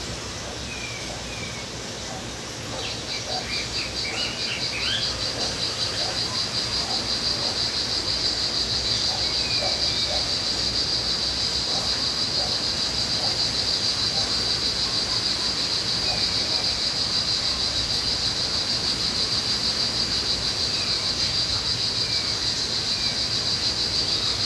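An insect starts a rapidly pulsing high trill about three seconds in and keeps it up steadily, over scattered short bird chirps.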